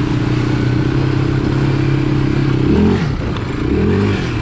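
Small off-road vehicle's engine running steadily under light throttle while riding through mud, then revved in two quick throttle blips, each rising and falling in pitch, about three and four seconds in.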